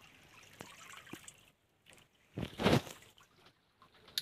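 Water splashing once, briefly, about halfway through, with a few faint knocks before it.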